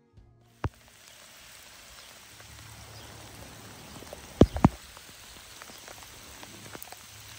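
Steady rain falling, an even hiss with scattered sharp taps of drops close by: one just under a second in and the two loudest in quick succession about four and a half seconds in.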